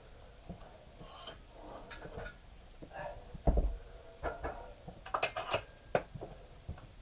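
Home-gym equipment being handled and moved while setting up for an overhead press: scattered knocks and rubbing, a dull thump about three and a half seconds in, and a quick run of sharp clicks around five to six seconds in.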